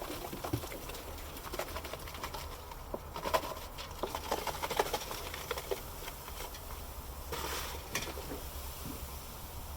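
Baking soda being shaken out and scattered over spilled battery acid: a light patter with many small clicks and knocks, and a brief hiss about three-quarters of the way through.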